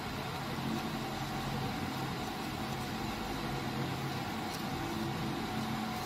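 Steady low background hum with faint droning tones underneath; no distinct stirring or scraping strokes stand out.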